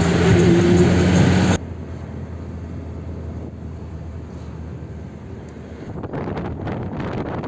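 Background music that cuts off abruptly about one and a half seconds in, leaving a low steady rumbling noise; near the end, wind gusts buffet the microphone.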